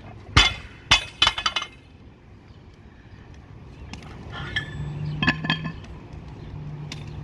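A loaded barbell dropped from overhead onto concrete. It lands with a loud crash, bangs again as it bounces, then the plates clank in a short rattle. A few lighter metal clinks follow a few seconds later as the bar is handled on the ground.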